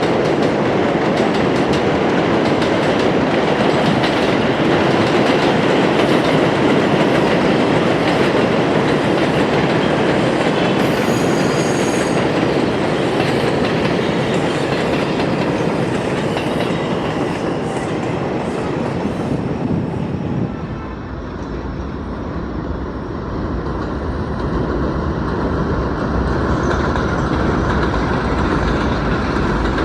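R-142 subway train running on elevated track, wheels clacking rapidly over the rail joints, with a brief high wheel squeal about eleven seconds in. About two-thirds of the way through the train noise drops away, leaving a lower, steadier rumble.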